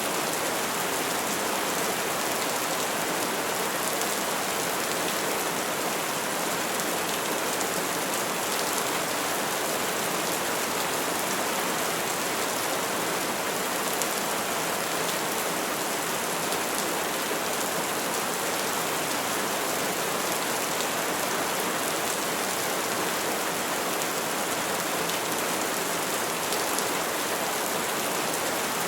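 Steady rainfall, an even wash of falling rain with faint scattered drop ticks, unchanging throughout.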